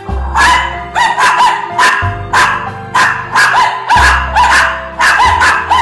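Small dog barking rapidly and repeatedly, about three sharp barks a second, over music with steady low bass notes.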